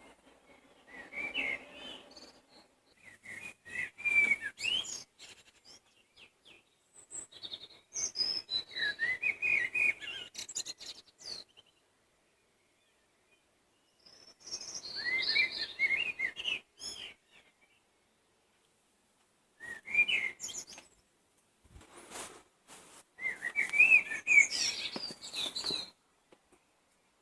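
Songbirds singing in spring: about six short phrases of quick, varied whistled and warbled notes, each a second to four seconds long, with short pauses between them.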